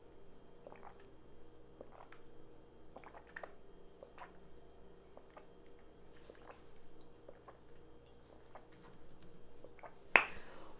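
Faint swallowing and small mouth sounds of drinking from a plastic water bottle, a few soft clicks spread through. About ten seconds in comes a sudden short louder noise as the bottle comes away from the mouth.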